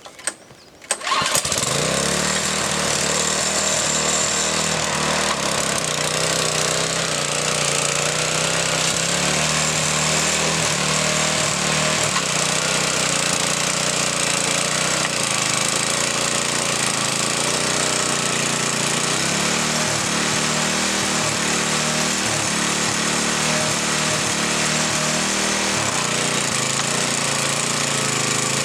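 Earthquake garden tiller's small engine starting up, catching about a second in after a couple of sharp sounds, then running steadily.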